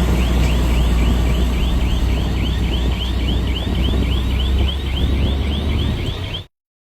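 Heavy diesel machinery running with a deep steady rumble, over a repeating electronic warbling alarm at about four chirps a second, like a reversing or travel alarm. The sound cuts off suddenly near the end.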